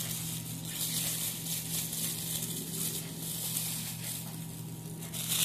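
A steady low hum under faint rustling and handling sounds from the food being laid in place.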